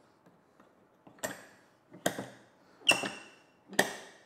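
Aftermarket hold-down clamp being turned down onto a RotopaX container, giving four sharp clicks just under a second apart as it tightens.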